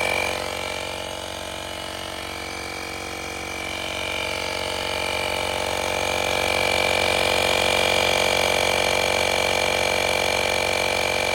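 12V portable electric tire inflator (AstroAI) running steadily as it pumps air into a car tire, a whining motor-and-piston drone that grows louder through the middle. It cuts off right at the end, shutting itself off on reaching the preset pressure.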